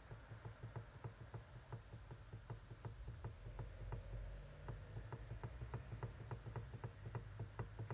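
Toyota Prius III electric power steering column knocking, a rapid even run of light clicks at about four a second: the known steering rattle, which the mechanic puts down to play in the column's reduction gear, possibly its worm gear.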